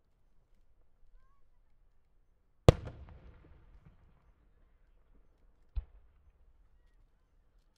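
Two reports from No. 5 (5-gō) aerial firework shells. The first, nearly three seconds in, is a loud sharp boom followed by about a second of rolling echo; the second, near six seconds, is shorter and quieter.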